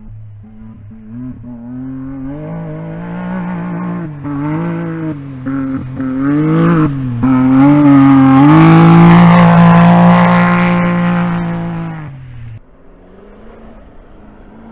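Rally-raid buggy's engine at full throttle as it approaches and passes close by. Its pitch rises and dips through gear changes, then holds high, loudest about nine seconds in. The sound drops off abruptly about twelve and a half seconds in, leaving a fainter engine in the distance.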